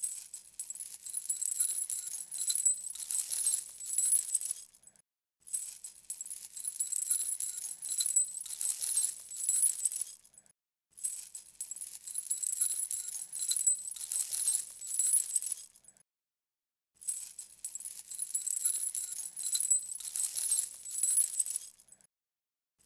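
Light metal chains rattling and jingling in four separate passages of about five seconds, each fading out before a short silence.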